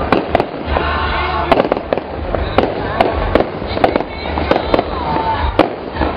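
Aerial fireworks shells bursting overhead in an irregular series of sharp bangs and crackles, about two or three a second, over a steady low rumble.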